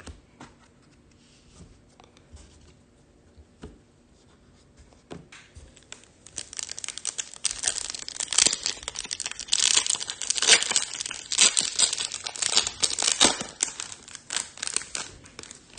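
Foil trading-card pack wrapper being torn open and crinkled: a few faint clicks at first, then from about six seconds in a dense run of crinkling and tearing.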